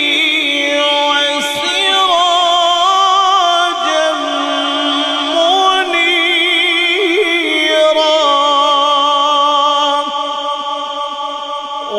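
A man's voice in melodic Quran recitation (tilawat), drawing out long held notes with wavering, ornamented turns of pitch.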